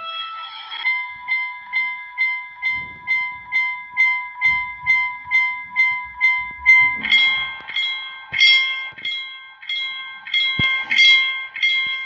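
Railroad level-crossing warning bells ringing at about two strikes a second. The bell sound changes to a different pitch about a second in, and again to a louder, brighter bell about seven seconds in.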